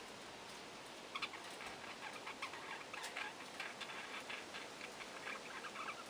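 Budgerigars chattering in rapid short chirps and squeaks, starting about a second in.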